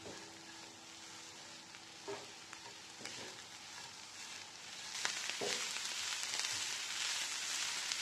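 Grated carrot, chopped red bell pepper and spring onion sizzling in oil in a frying pan as they are stirred with a wooden spatula. The sizzle gets louder about five seconds in, and the spatula knocks lightly against the pan a few times.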